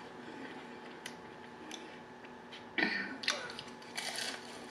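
Close-miked eating sounds: fried chicken skin being chewed, with a few sharp clicks and smacks and one louder crunch about three seconds in.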